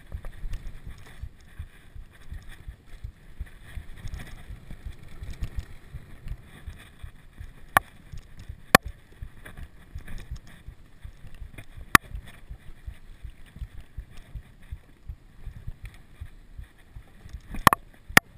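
Mountain bike ridden over a rough dirt trail, heard from an action camera on the rider: a constant jolting low rumble and rattle, with wind on the microphone. A few sharp clacks of bike parts knocking cut through it, two close together near the end.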